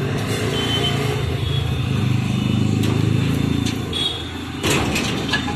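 A motor vehicle engine rumbling close by, swelling about halfway through and then easing off, with a few sharp metal taps of a steel spatula on the iron griddle near the end.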